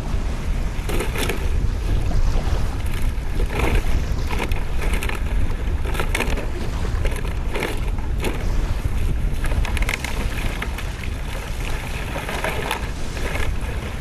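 Strong wind buffeting the microphone over sea waves lapping the shore, with brief rustling noises every second or two as plastic bottles and bags are handled.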